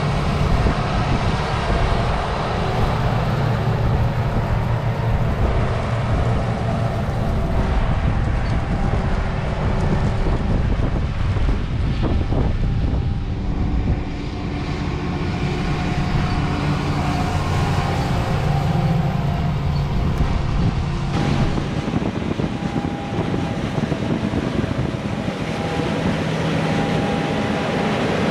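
Combine harvesters cutting wheat: a steady running drone of engines and machinery holding several tones, shifting slightly twice along the way.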